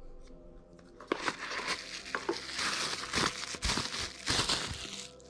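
Plastic bubble-wrap bag crinkling and crackling as hands handle it and take a small part out, starting about a second in and going on for about four seconds with many sharp crackles.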